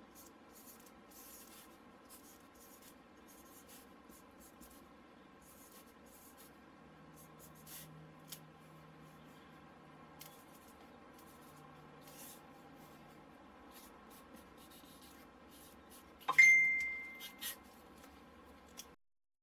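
Faint scratching of a pen writing on paper, with small ticks. About sixteen seconds in comes a sudden loud, high beep that holds steady for about a second.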